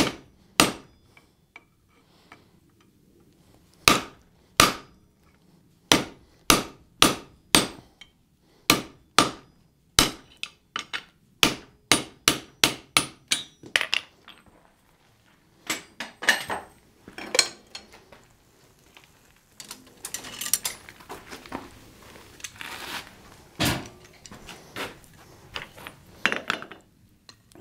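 Hand hammer striking a hot steel bar on an anvil to cut it to length: about twenty sharp, ringing blows, mostly in quick runs of two or three a second. About halfway through the hammering gives way to lighter metal clinks and scrapes as tools and stock are handled on the anvil, with one more sharp strike near the end.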